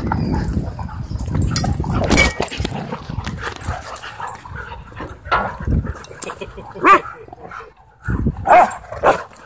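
Dogs playing rough at close range, barking and yipping. A low, rough rumble fills the first two seconds, and the loudest sharp barks come about seven and eight and a half seconds in.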